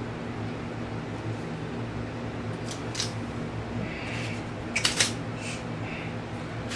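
A steady mechanical hum with a few small sharp clicks and ticks from hands handling small objects, loudest in a short cluster about five seconds in.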